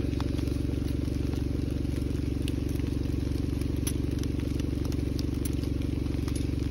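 A motor engine idling steadily as a low, even drone, with a few faint ticks over it.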